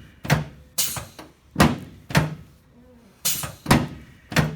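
A rapid series of about seven sharp thumps, roughly two a second, as a chiropractor delivers quick thrusts to the patient's left sacroiliac joint on the treatment table.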